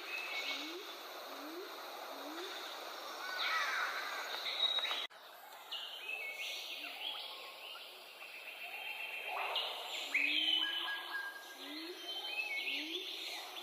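Several birds calling over one another, short chirps and whistled notes, with a low short rising note repeated every second or so. The sound breaks off abruptly about five seconds in and the calling resumes.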